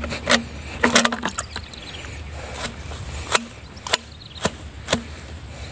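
Irregular knocks and clicks of a tube-shaped eel trap being handled against a plastic bucket as the eels are emptied out of it, about a dozen sharp taps in all, a quick cluster of them about a second in.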